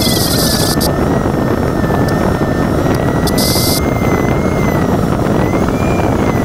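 Steady rush of air over the canopy of a Rolladen-Schneider LS4b glider in flight, with a thin electronic variometer tone wavering slightly in pitch. Short bursts of high hiss come at the start and about three seconds in.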